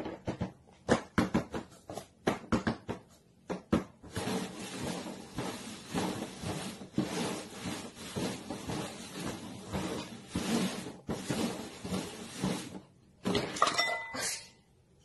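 Paper cups tapped down and slid around on a cardboard box as they are shuffled: a run of separate knocks at first, then about nine seconds of quick, continuous scraping and clattering.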